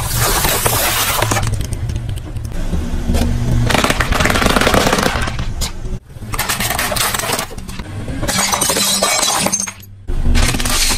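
A car tyre rolling over and crushing things: small plastic drink bottles bursting and spraying their liquid, then a row of CDs cracking and shattering, and near the end a bundle of coloured pencils. The result is a run of crackling, breaking noises that stop suddenly twice, where one clip cuts to the next.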